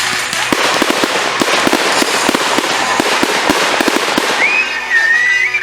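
Fireworks crackling and popping in a dense, rapid barrage of sharp cracks. Near the end a high whistle rises and wavers for about a second.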